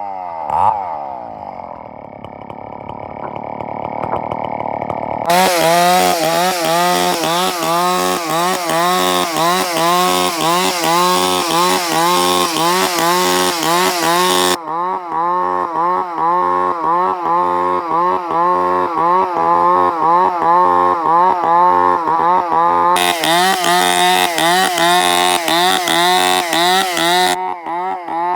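Chainsaw engine running under load as it rips a log into square timber. Its pitch wavers up and down in a quick steady rhythm. It runs quieter for the first few seconds, then loud with a hissing cutting noise through two long stretches.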